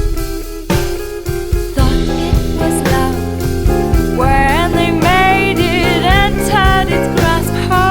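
Background music: guitar with drums, a singing voice coming in about halfway through.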